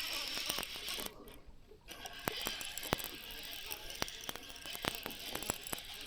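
A fishing reel clicking irregularly, over a steady high hiss.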